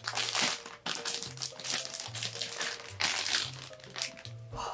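Repeated crinkling and rustling of a cardboard box and its packaging being handled or shifted, over soft background music with low held notes.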